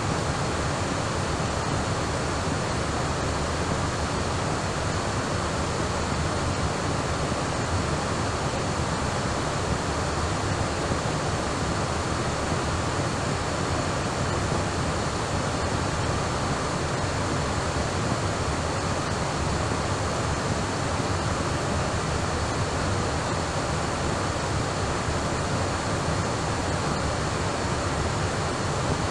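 Steady, unbroken rushing noise with two faint high steady tones in it.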